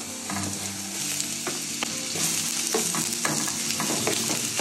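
Onion half-rings frying in olive oil in a pan: a steady sizzle, with scattered clicks of a utensil stirring them.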